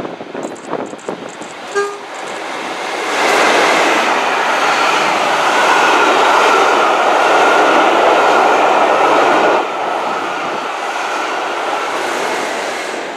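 A diesel-hauled train of coaches, with a Class 47 and a Class 37 at either end, passing through a station at speed. A brief horn toot sounds about two seconds in. A loud rush of wheels on rail then builds and holds for several seconds, drops suddenly to a lower rush as the rear locomotive passes, and fades near the end.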